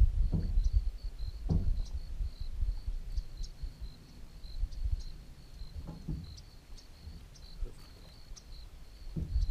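Short high-pitched chirps at one steady pitch, repeating a few times a second, in the manner of a cricket, over a low rumble and a few soft knocks.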